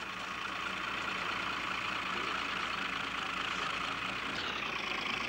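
Heavy vehicle engine running steadily, most likely the crane truck handling the fishing boat, with a slight shift in its sound about four seconds in.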